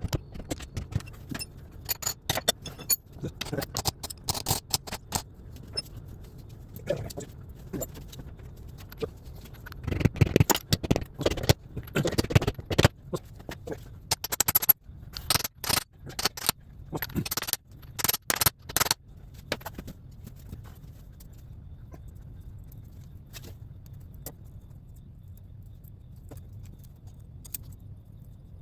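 Metal tools clinking, scraping and knocking on a transaxle housing during reassembly: scattered sharp clanks through the first twenty seconds, with a busy stretch in the middle and several distinct strikes after it, then only a low background.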